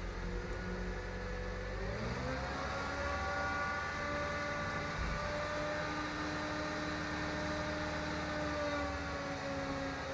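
Isuzu garbage compactor truck's diesel engine rising in pitch about two seconds in and holding at raised revs with a steady whine, then slowing near the end. The throttle is held up to drive the compactor's hydraulics.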